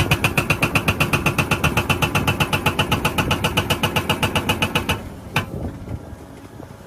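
Rapid, even mechanical clicking, about eight clicks a second, with a high ringing tone over it; it stops about five seconds in, followed by one more click.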